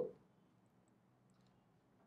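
Near silence: room tone, with a few faint ticks.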